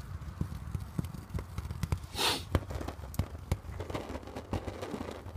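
Scattered light clicks and knocks from handling over a steady low rumble, with one short breathy rush about two seconds in.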